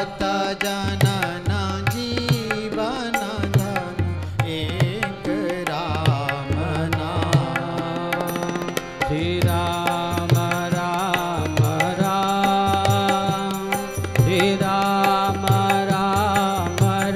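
Devotional sankirtan: a sung chant over a sustained harmonium melody, with tabla keeping a steady beat.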